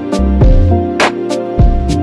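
Background music with a steady beat over a pulsing bass line.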